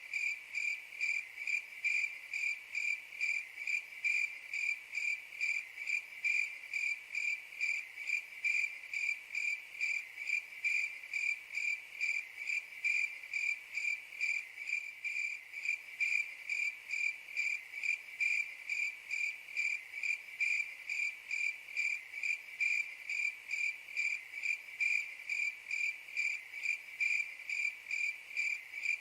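A cricket chirping in a steady, even rhythm, about two chirps a second, each a single high note.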